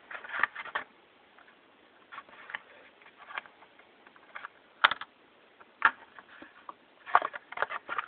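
Plastic blister pack of a carded Hot Wheels die-cast car handled in the hand: scattered light clicks and crinkles of the plastic, with a sharper click about five seconds in and a quick cluster of clicks near the end.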